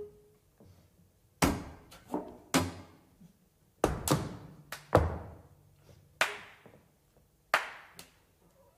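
Sharp hand claps struck by the players of a clarinet, horn and cello trio as part of a contemporary chamber piece: about ten claps in irregular clusters, each ringing briefly in the room, with quiet between them.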